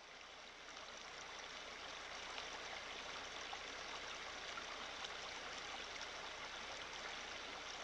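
Shallow stream running over rocks: a steady rush of flowing water that rises a little over the first couple of seconds.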